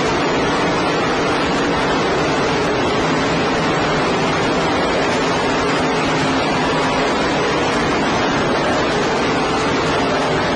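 Race car engines running at racing speed, heard as a loud, steady, muddy wash of noise with faint engine tones through it.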